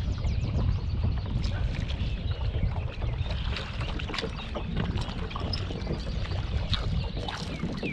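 Wind rumbling on the microphone and small waves lapping against a boat hull, with scattered sharp clicks and splashes.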